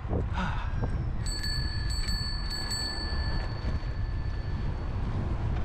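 Bicycle bell rung three times in quick succession, about half a second apart, its ring lingering for a few seconds after the last strike, over a steady low wind rumble on the microphone.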